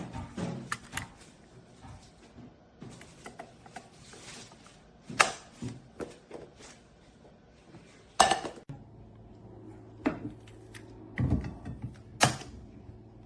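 Scattered knocks and clicks of ceramic cookware being handled: pots, pans and lids knocking and clicking together. A low steady hum comes in about two-thirds of the way through.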